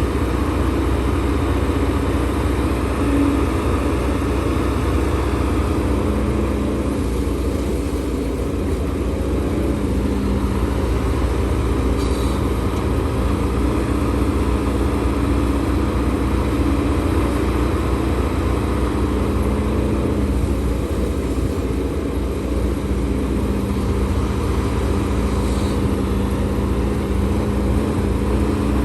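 Diesel engine of a HIDROMEK HMK230LC excavator running steadily, a constant engine drone.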